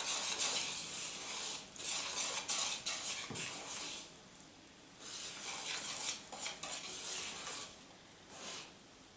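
Wire hand whisk beating thick cake batter in a ceramic bowl, in rapid strokes, its wires scraping and clinking against the bowl. The whisking pauses briefly about four seconds in and again near the end.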